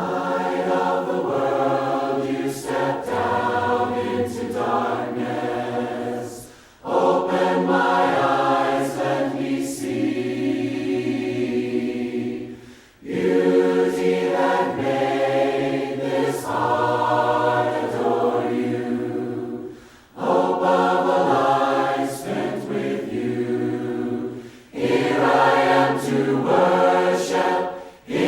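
A group of voices singing a hymn a cappella in harmony, unaccompanied, in sung phrases of about five to seven seconds with brief breath pauses between them.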